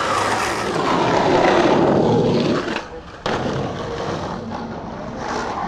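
Skateboard wheels rolling over asphalt, growing louder and then fading. A sudden sharp clack comes about three seconds in, followed by steadier rolling and street noise.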